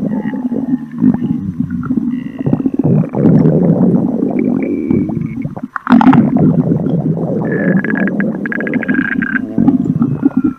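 Growling stomach sound effects: a string of deep, gurgling rumbles. They break off sharply just before six seconds in, when a new rumble starts. A higher held squeal runs over the rumbling for about two seconds in the second half.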